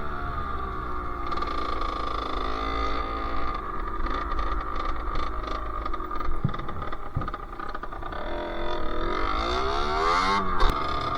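Sherco SM-R 50's small two-stroke engine under way on a ride: the engine note falls off in the first couple of seconds, runs fairly steady, then revs up sharply near the end. A short sharp click comes just before the end.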